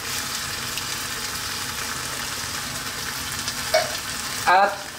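Sardines and their tomato sauce sizzling steadily in a hot frying pan of sautéed vegetables and water spinach as they are tipped in from the can. The sizzle gets louder right at the start.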